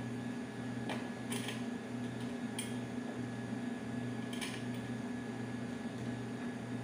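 Steady electrical hum of a room appliance, with a handful of light, sharp clicks as a hand tool works at the underside of a metal chair.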